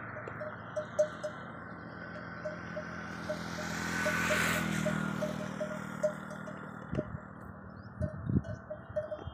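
A small bell tinkles lightly a few times a second, the sound livestock bells make in grazing country. Around the middle a broad rushing sound with a low hum swells and fades, and a few short low crunches or thumps come near the end.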